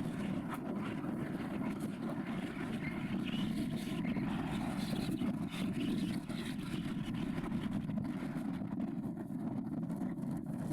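Strong wind buffeting the microphone: a steady low rumble that never lets up.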